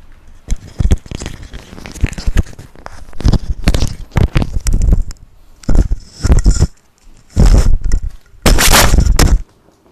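Loud rustling and knocking on the microphone, in irregular bursts that grow louder, the strongest overloading it; it stops shortly before the end.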